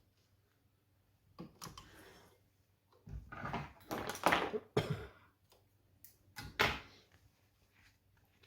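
Handling noises at a sewing machine: three separate bouts of rustling with knocks, the loudest in the middle. The machine itself is not running.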